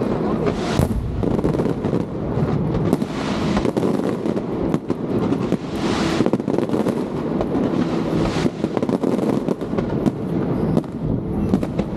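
Fireworks going off in a continuous crackling barrage, with heavier bursts about every two to three seconds.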